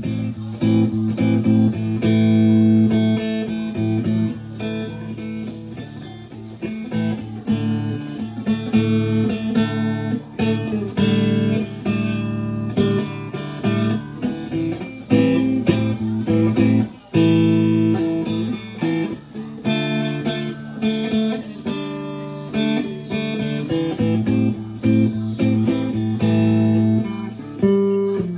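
Chambered Telecaster electric guitar played in an open tuning: picked notes and chords ringing over open strings that drone low and steady.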